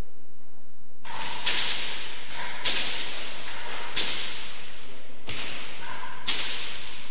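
A rally in an enclosed walled court: a hard ball cracking off rackets, walls and floor about ten times in quick succession, each hit echoing briefly. The hits start about a second in, and a shoe squeaks on the floor about four seconds in.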